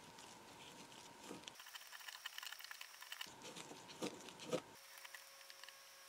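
Light metallic clicks and scrapes of a steel pin punch against a pin as it is driven into a hole in the cast-iron frame of a 1902 eyelet press, with two sharper clicks in the second half.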